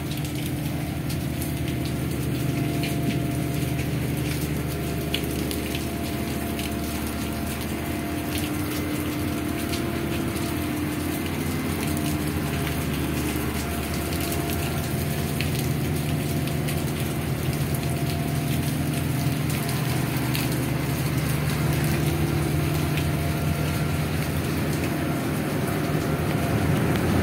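A ship's engines drone steadily as a deep, even hum, under a constant hiss of wind and sea wash on the open deck.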